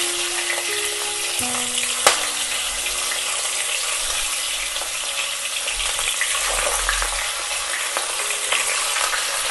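Fish heads coated in salt and turmeric frying in hot mustard oil in a kadai: a steady sizzle as more pieces go into the oil, with one sharp click about two seconds in.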